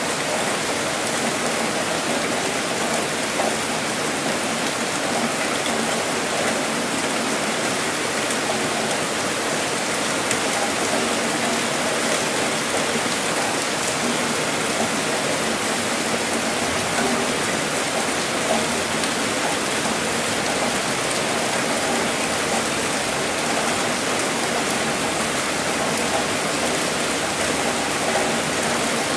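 Steady rainfall, an even hiss of drops.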